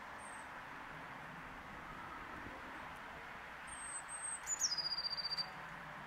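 Eurasian blue tit singing: two high, thin notes about four seconds in, then a drop to a lower, fast trill lasting under a second. Steady faint background noise runs under it.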